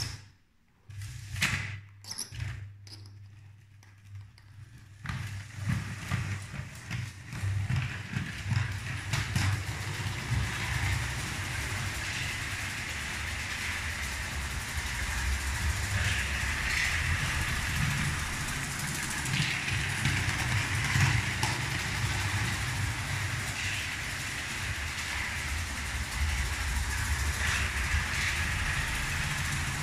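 Lego 12V electric train running on plastic track: a few sharp clicks in the first seconds, then a steady motor hum and running rattle that builds up about five seconds in and holds.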